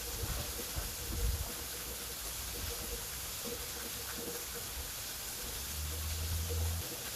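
Waterfall, a steady rush of falling water. There are low rumbles in the first second or so and again near the end.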